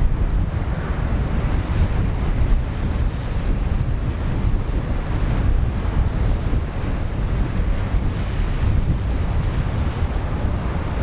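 Sea waves washing on the shore, swelling and easing every few seconds, with wind buffeting the microphone in a steady low rumble.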